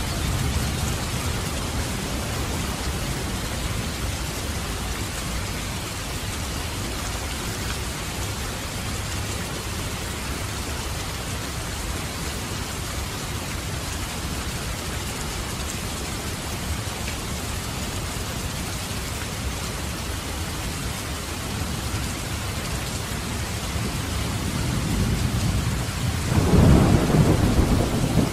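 Steady rain falling, with a low rumble of thunder underneath that swells into a louder roll of thunder near the end.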